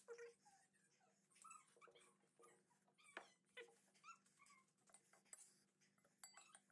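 Faint short whimpers and breathy hisses from a man suffering the burn of very spicy Korean noodles, with a few light clicks.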